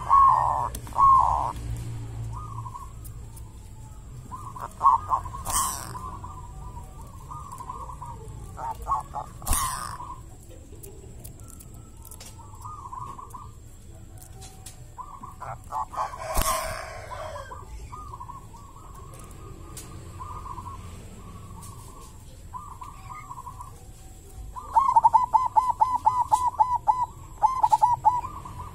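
Zebra dove (perkutut) cooing: phrases of quick pulsed coo notes, with a big, thick, resounding voice. The loudest is a long run of rapid coos near the end.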